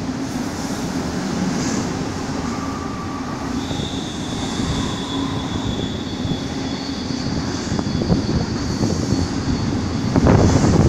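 Double-stacked container cars of a Union Pacific freight train rolling past below, a steady rumble with a few thin, high wheel squeals held for a few seconds each. A louder bang or thump comes about ten seconds in.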